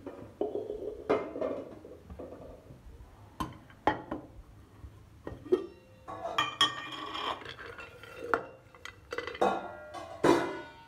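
Steel kitchen vessels clinking and knocking as they are handled: about ten sharp knocks and clinks at irregular intervals, some ringing briefly.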